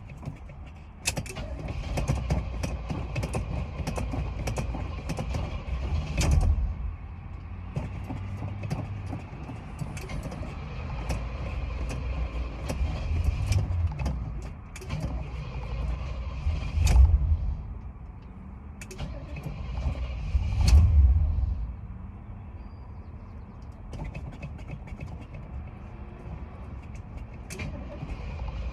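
A hard-starting car engine being cranked over and over, with louder surges about 6, 17 and 21 seconds in, and short clicks throughout.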